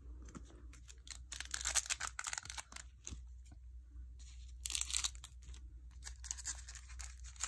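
A foil-wrapped trading-card pack being torn open and its wrapper crinkled, in rustling bursts about a second and a half in and again near five seconds.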